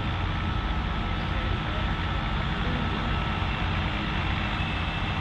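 John Deere 8R 370 tractor's engine running hard under heavy load as it drags the pulling sled slowly forward, steady throughout, with a faint thin high whine above it.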